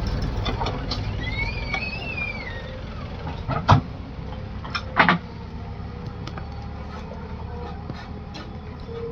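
Heavy diesel machinery running steadily with a low rumble, with two sharp knocks about three and a half and five seconds in.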